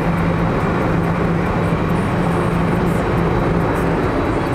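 Steady road and wind noise inside a car's cabin at highway speed, with a low, even hum running under it.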